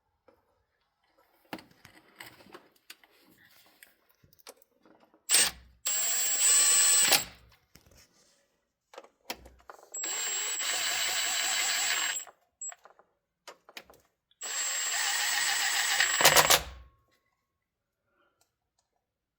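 Power drill running the valve body bolts down into the 68RFE transmission case in three runs of about one to two and a half seconds, each starting and stopping abruptly, with a short blip before the first. Light clicks of tools and parts are heard between runs.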